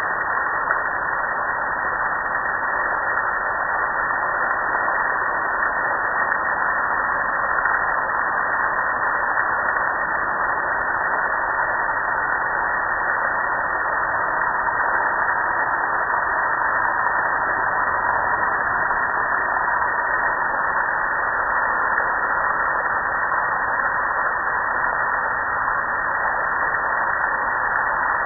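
Steady hiss of water spraying down onto a metal gas grill and splashing off its lid, control panel and frame onto the ground below.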